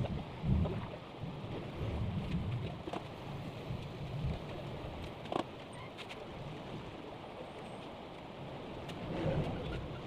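A van driving past, a low rumble strongest in the first few seconds, with a single light knock about halfway through.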